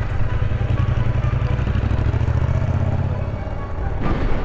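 Motorcycle engine running as the bike rides away over cobblestones, its low engine note fading out about three seconds in.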